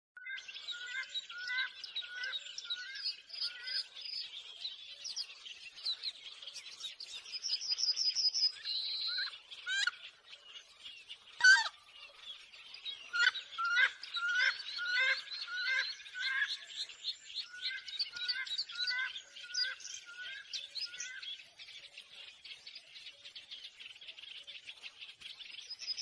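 Several birds chirping and singing together: short whistled notes repeated a few times a second, with fast trills. One loud sharp call comes about eleven seconds in.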